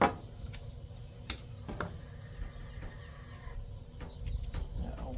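Hand work on a replacement plug and its wiring: a sharp click at the start, then a few lighter clicks and taps of plastic parts and small tools being handled.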